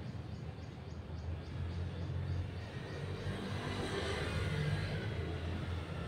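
Steady low background rumble, with a soft hiss that swells about three seconds in and fades near the end.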